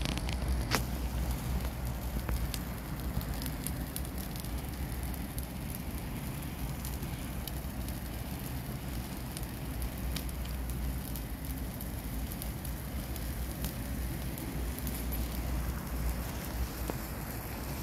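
Dry brush burning in a metal burn barrel: flames crackling with frequent sharp pops over a steady low rumble.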